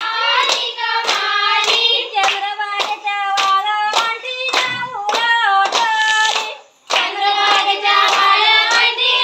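A group of women and girls singing a traditional Konkani folk song together while clapping hands in a steady rhythm, about two claps a second. Singing and clapping break off briefly about two-thirds of the way through, then start again.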